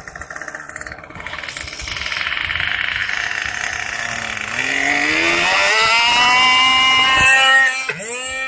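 Small two-stroke model airplane engine running, then throttled up about halfway through so its pitch climbs to a high, steady whine at full power. Just before the end the pitch briefly drops and recovers.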